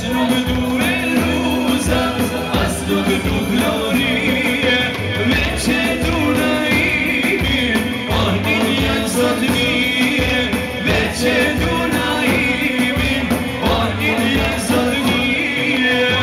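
Live folk dance music with singing, driven by a large double-headed drum (Albanian daulle) beaten with a stick in a steady rhythm.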